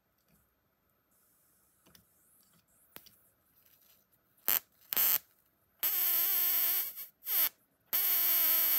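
High-voltage arc from a flyback transformer generator, drawn between the high-voltage lead and a pin of the transformer. It is quiet at first, then about halfway through comes a buzzing, hissing discharge: two short snaps, a steady arc about a second long, a brief one, and another steady arc near the end. The pitch slides down as the arcs break off.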